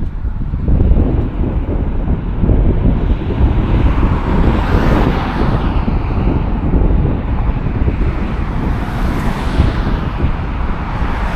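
Wind buffeting the microphone, with cars passing on a road: one swells past about five seconds in and another around nine seconds.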